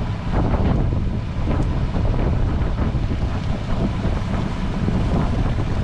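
Wind buffeting the microphone on a boat at sea, over a steady low rumble.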